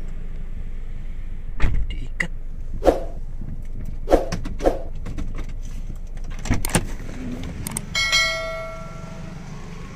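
A car's engine idles as a steady low hum, heard from inside the cabin, with a scattered series of knocks and clunks. A short metallic ring comes about eight seconds in, and the hum falls away just after it.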